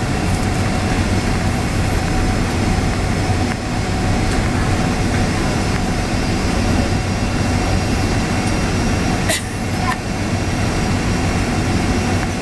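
Steady jet-airliner cabin rumble heard from a window seat over the wing of a Boeing 767 rolling on the ground after landing: the engines run at low power under a low hum. A single sharp click or knock comes about nine seconds in.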